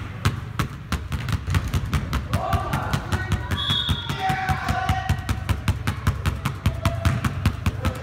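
Two basketballs dribbled rapidly on a hardwood gym floor, a fast, steady run of bounces.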